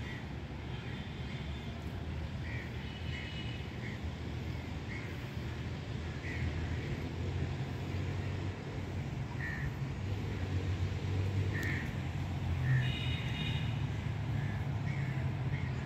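Outdoor ambience: a steady low rumble, with birds chirping briefly every second or two and a longer, louder call near the end.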